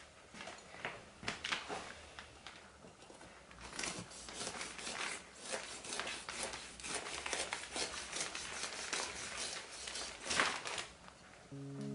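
Large kitchen knife sawing into a durian's spiky husk: an irregular run of crisp crunching and crackling strokes as the blade works through the fibrous rind, sparse at first and thickening after a few seconds, with the loudest crunch near the end.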